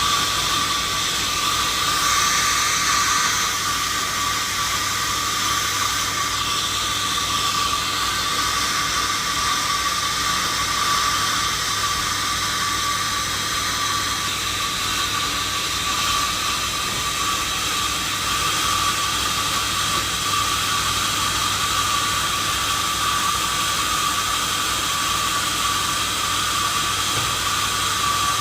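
Sawmill saw running steadily: a continuous loud hiss with a steady high whine and a low hum underneath, unchanging throughout.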